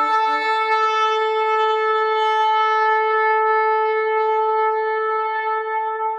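Shofar sounding one long blast. A lower note at the start drops away about a second in, leaving a single steady note held throughout.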